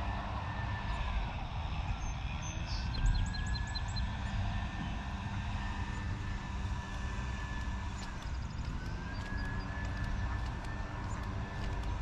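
Distant siren wailing: a thin high tone that holds, falls in pitch and glides back up twice, over a low steady rumble of road traffic.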